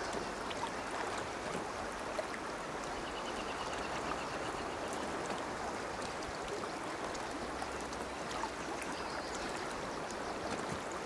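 Steady rush of flowing creek water, even and continuous.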